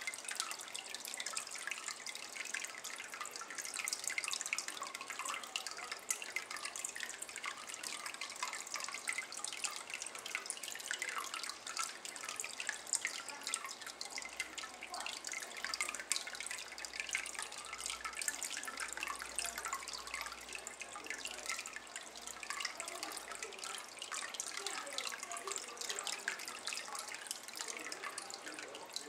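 A thin stream of water falling steadily into a water-filled ceramic basin, trickling and splashing continuously.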